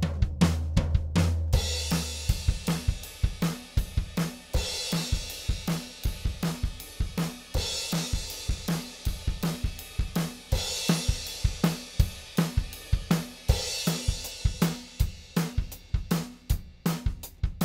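Drum kit playing a steady groove of kick, snare and hi-hat, with a cymbal wash about every three seconds, run through the elysia xpressor 500 compressor as an audio demo. A low bass note sounds under the drums and stops about two seconds in.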